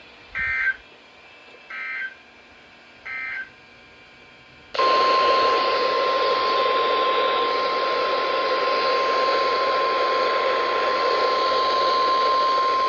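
Three short warbling SAME data bursts, the end-of-message code of a weather alert broadcast, about a second and a half apart. Then, about five seconds in, NOAA Weather Radio's steady single-pitch warning alarm tone sounds over loud radio static, announcing the next warning.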